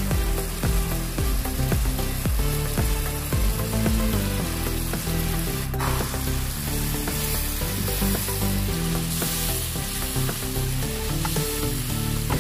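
Chicken masala sizzling in a nonstick frying pan while it is stirred with a spatula.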